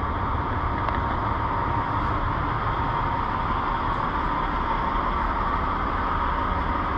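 Steady machinery noise: a constant low rumble with a faint steady whine, unchanging throughout.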